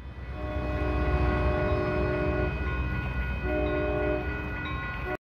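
ACE commuter train passing with a low rumble while its multi-note air horn sounds one long blast of about two seconds, then, after a short pause, a shorter blast. The sound cuts off suddenly near the end.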